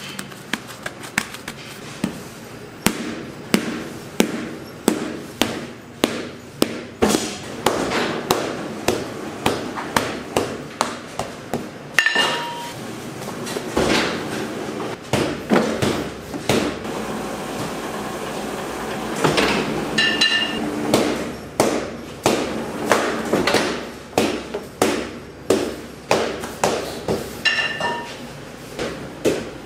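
Rhythmic knocking, about two sharp knocks a second, with a few short high ringing tones at intervals.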